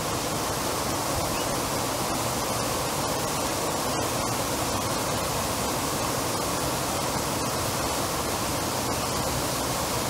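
Plaza water fountain with dozens of vertical jets spraying up and splashing steadily back into its pool, a constant rushing of water.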